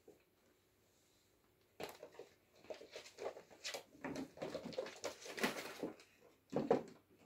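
Kittens play-wrestling on a rug: an irregular patter of paws, scuffles and soft bumps, busiest in the middle, with a louder bump near the end.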